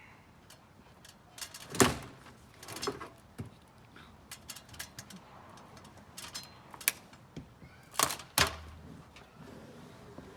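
Knocks and thumps of a rooftop RV air conditioner being set down and shifted into place on a bus roof: a scattered series of sharp knocks, the loudest a little under two seconds in and a close pair near the end.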